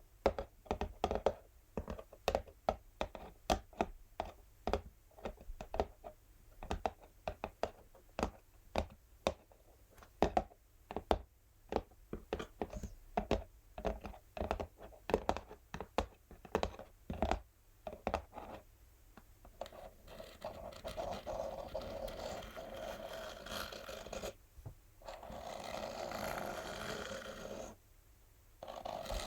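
Natural fingernails tapping quickly and irregularly on an empty textured cardboard box, then changing about two-thirds of the way in to long, continuous scratching across the cardboard, with two brief pauses.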